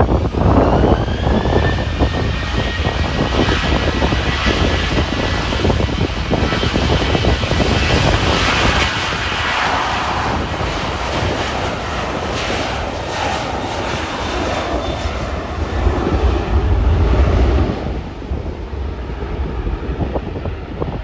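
An airliner's engines running close by with a high whine that rises in pitch over the first couple of seconds, then holds and fades out about two-thirds of the way through. Heavy wind buffeting on the microphone rumbles underneath in gusts.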